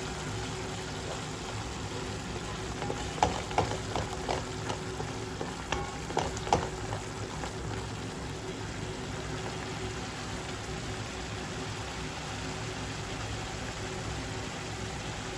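Ground curry spice paste frying steadily in hot oil in a wok, cooking until the oil separates out. A handful of sharp knocks, typical of a utensil against the pan, come about three to seven seconds in.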